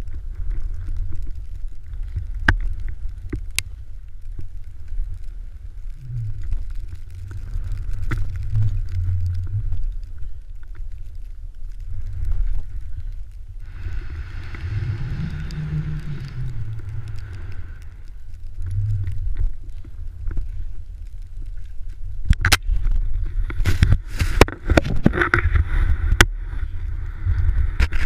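Wind rumble and handling noise on a pole-mounted action camera as skis run through deep powder, with scattered clicks and a stretch of snow hiss. Near the end a dense run of sharp knocks and hiss as the skier falls and the camera plunges into the snow.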